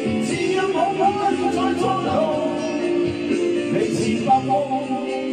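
A man singing karaoke into a handheld microphone over a backing track with guitar.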